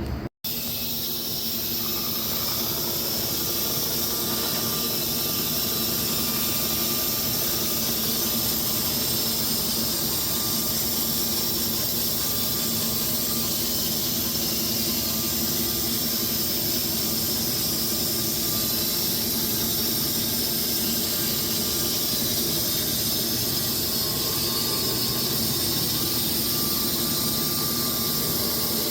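Wood-Mizer LX250 electric band sawmill running its blade steadily through several hardwood logs at once, a continuous high hiss with a faint whine.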